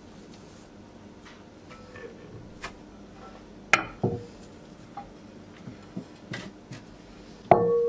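Light clicks and taps of a round Borcam glass baking dish being handled over rolled dough. Near the end the glass takes a sharp knock and rings with a clear tone that fades slowly.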